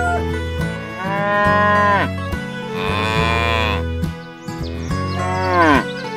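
A cow mooing three times, each long call dropping in pitch at its end, over steady background music.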